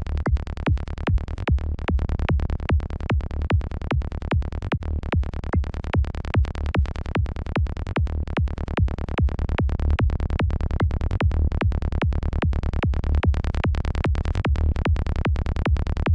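Psytrance kick and bass loop from the KickNBassGel software synth in the key of D: a steady kick on every beat with a rolling synth bass between the kicks, repeating evenly throughout.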